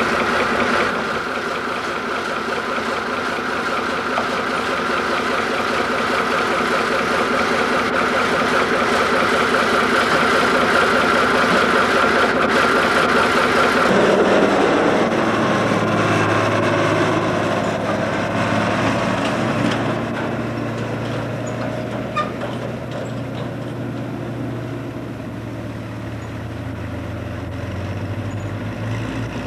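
Tractor engines running steadily; about halfway through the sound changes abruptly to a lower, steadier engine note.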